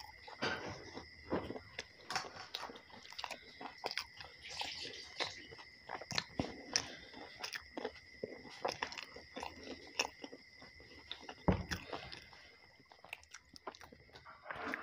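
A man chewing soft roti and mashed roasted potato (aloo bharta) close to the microphone, with many short irregular mouth clicks. A faint steady high-pitched whine runs underneath, and one dull thump comes about three-quarters of the way through.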